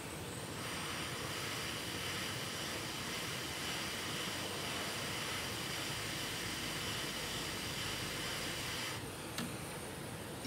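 Hot air rework station blowing a steady hiss of air to reheat and reflow the soldered transponder coil on a key fob circuit board. The air comes on about half a second in and cuts off about a second and a half before the end.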